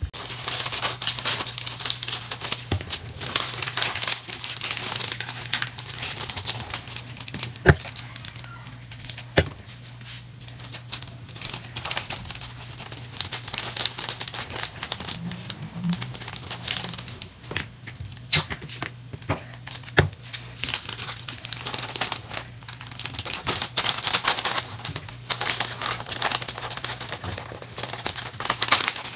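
Glossy gift-wrapping paper crinkling and rustling as a box is wrapped and the paper folded and creased by hand, with a few sharp clicks. A steady low hum runs underneath.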